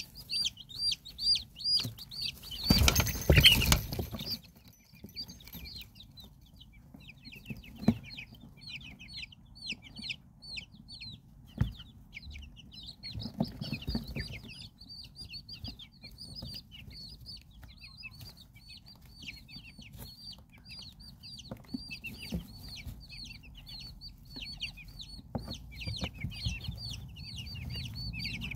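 Silkie chicks peeping continuously in high, short, falling notes, several a second. A loud rustling burst comes about three seconds in, with a few light taps in the wood shavings later on.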